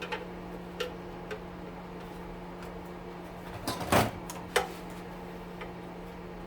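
Sheet-metal oven parts being worked loose by hand and tool: scattered light clicks, a cluster of clanks and scraping about four seconds in, then a sharp loud clank at the very end.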